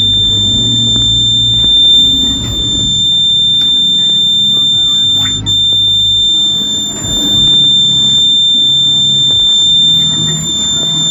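Buzzer of a homemade infrared-sensor fire alarm sounding one steady, unbroken high-pitched tone, the alarm triggered.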